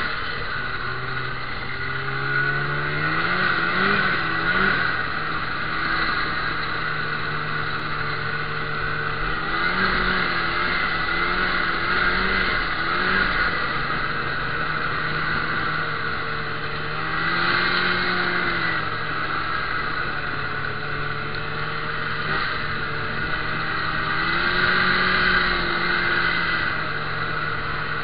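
Snowmobile engine revving up and down as it is ridden through deep snow, its pitch rising and falling every few seconds, under a steady hiss.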